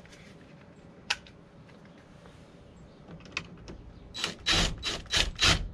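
Cordless impact driver run in about five short trigger bursts, tightening a screw terminal in a breaker panel. A single sharp click comes about a second in.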